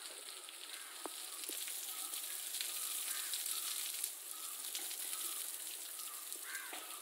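Water spray hissing and pattering as it showers down onto an elephant's head and back, building a little toward the middle.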